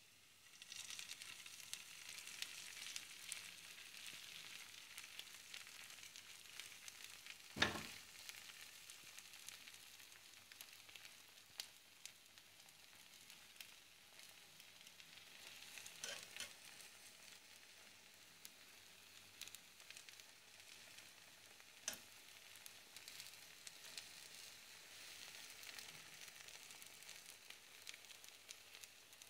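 Faint sizzling of a rolled egg omelette frying in an oiled pan, a steady crackle. A few sharp clicks break in, the loudest about eight seconds in.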